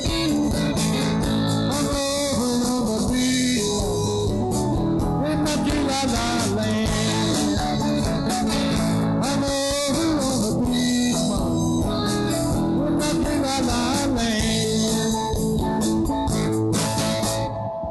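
Live blues-rock band playing, led by electric guitars over bass and drums; the song stops a little before the end.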